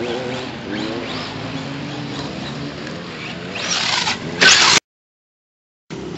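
Electric motor of an RC truck (Traxxas Stampede 4x4 on a Mamba Max Pro system with a 2400 kV brushless motor) whining, its pitch rising and falling with the throttle. Near four seconds there is a loud burst of rushing noise as the truck comes close over the dirt, then the sound cuts out for about a second.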